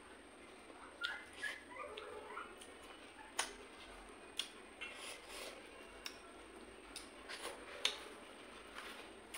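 Close-miked eating sounds: chewing with wet lip smacks and sharp mouth clicks as fish and rice are eaten by hand, with fingers squishing rice on a steel plate near the end. Faint high chirps about one to two seconds in.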